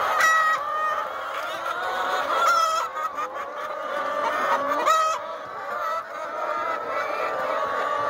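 A large flock of brown hens clucking together in a continuous overlapping chorus. Three sharper, louder squawks stand out: one at the start, one about two and a half seconds in, and one about five seconds in.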